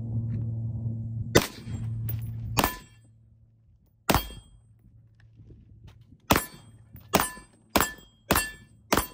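Suppressed short-barreled AR-pattern rifle firing eight single shots, spaced out at first, then about one every two-thirds of a second. Each shot is a sharp crack with a short ring-out. A steady low hum runs under the first two shots and stops after about three seconds.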